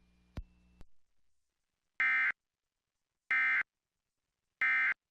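Emergency Alert System end-of-message data bursts: two short clicks, then three identical shrill, buzzing digital bursts, each about a third of a second long and about a second apart. They are the SAME 'NNNN' code sent three times to close a broadcast tornado warning.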